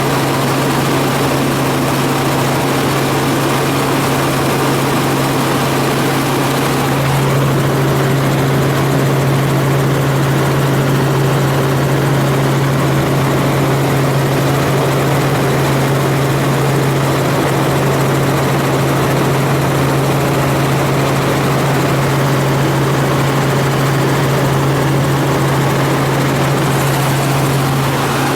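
Helicopter running steadily: a constant rotor and engine drone with a strong low hum over a broad hiss.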